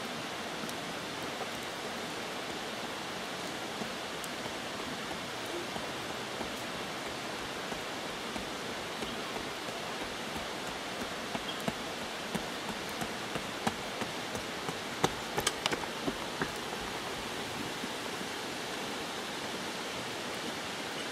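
Steady rushing hiss of outdoor background noise, with a scatter of sharp ticks in the second half.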